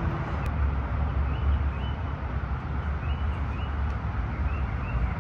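Outdoor ambience: a steady low rumble, with small birds chirping faintly and repeatedly over it.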